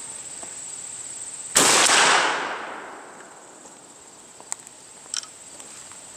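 A single shot from a 12-gauge Mossberg 500 pump shotgun firing 00 buckshot: one sharp report about one and a half seconds in, its echo dying away over the next second or so. A couple of faint clicks follow near the end.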